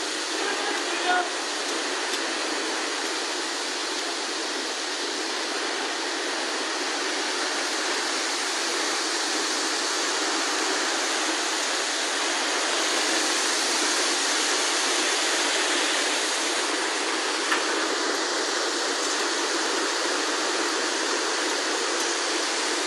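Flash-flood torrent of muddy water rushing by: a steady, dense rush of water noise.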